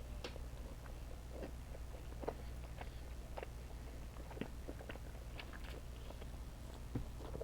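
A person chewing candy close to the microphone: scattered small wet mouth clicks and crackles over a steady low hum.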